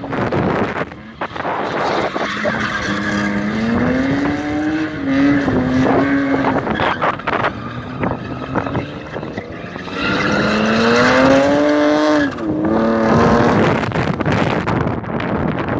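BMW drift car's engine revving hard as it slides through a drift, the pitch climbing twice and then dropping, over the hiss of spinning tyres.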